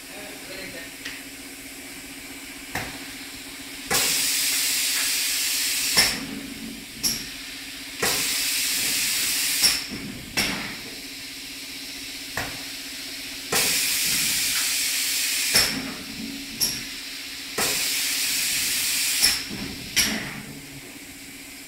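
Automatic compressed-air spray gun spraying paint in four hissing bursts of about two seconds each, one for each stroke of the machine's painting cycle. Each burst starts and stops with a sharp click, and shorter clicks and hisses come between the bursts. A steady low hum runs underneath.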